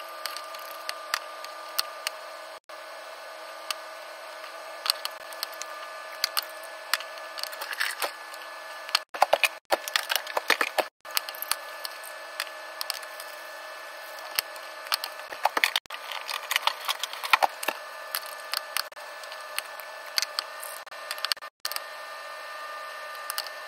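Egg sizzling in a rectangular tamagoyaki pan while wooden chopsticks tap and scrape against the pan as the omelette is rolled, with clusters of sharp clicks. A steady hum runs underneath.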